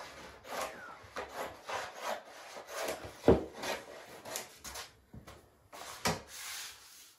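Scissors cutting through the overhanging edge of lining paper, with the stiff paper rustling and crackling as it is handled, in a string of irregular cuts; the loudest comes about three seconds in.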